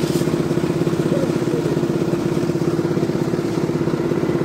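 Concrete mixer's engine running steadily with an even, rapid chugging beat and a strong steady hum.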